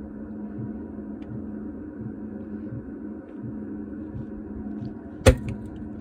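Diesel air heater humming steadily through a failed start-up, its fuel and carb-cleaner vapour not yet lighting cleanly. About five seconds in there is a single sharp bang as the unburnt mixture explodes in the combustion chamber, a backfire after carb cleaner was forced through the fuel line.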